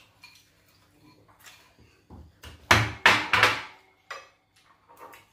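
Spoon and crockery clattering at a dining table: a few light clicks, then a quick run of three louder clinks and scrapes about three seconds in, and a couple more taps near the end.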